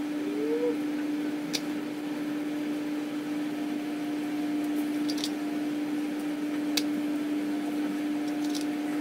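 A steady, even hum with a background hiss, like a small fan or appliance running in a small room, with a few faint light clicks and one brief rising squeak near the start.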